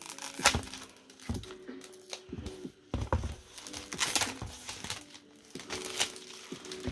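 Clear plastic film being peeled and crumpled off a watercolour paper block, crackling in irregular bursts.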